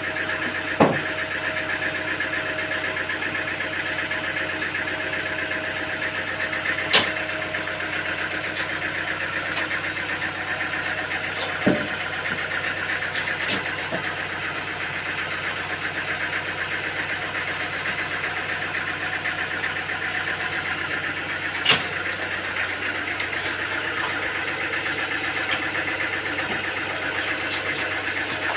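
Sawmill machinery's engine running steadily at an even speed, with four sharp knocks about one, seven, twelve and twenty-two seconds in.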